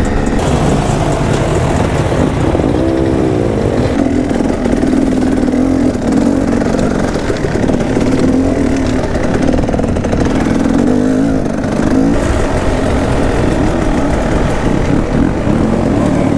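Two-stroke enduro motorcycle engine running under load on a trail ride, its pitch rising and falling with the throttle, with a quick rev up and back down about three seconds in.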